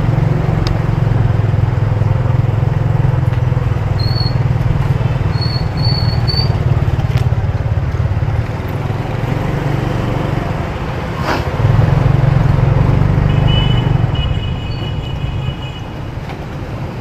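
Ride on a motorbike: its engine runs with a dense low rumble of wind and road noise, and traffic can be heard around it. The rumble swells about twelve seconds in, then eases for the last few seconds as the bike slows.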